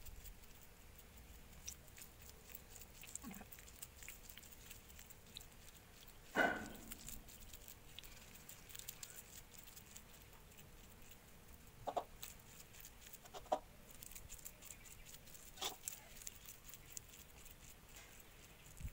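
Faint crackling rustle of hands pressing and rolling grated coconut mixture into laddus in a stainless-steel bowl, with a few short animal calls, the clearest about six seconds in.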